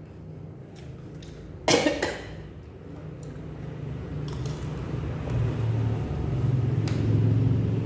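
A person coughs once, sharply, about two seconds in. Then a low engine rumble from a passing vehicle swells over the last few seconds.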